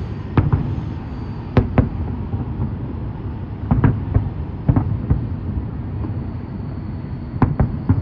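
Fireworks shells bursting overhead: sharp bangs at irregular intervals, often two in quick succession, over a steady low rumble.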